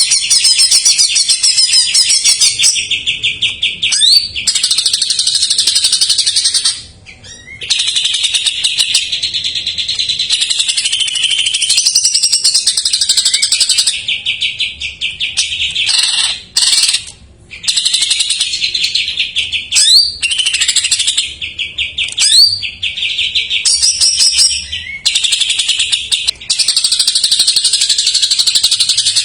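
A cucak ijo (green leafbird) singing without letup, a fast run of high chattering trills and whistled phrases with mimicked calls of other birds worked in. The song breaks off briefly twice, about seven and seventeen seconds in.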